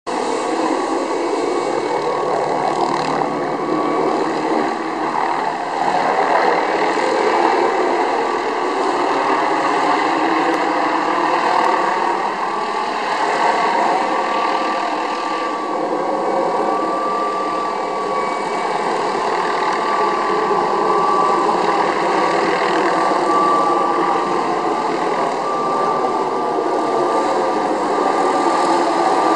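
Firefighting helicopter flying overhead, its rotor and engine running steadily, with a steady whine over the rotor noise.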